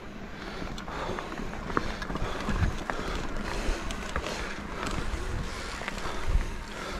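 Mountain bike rolling along a dirt singletrack: steady tyre noise on the ground with scattered clicks and knocks from the bike rattling over the rough surface.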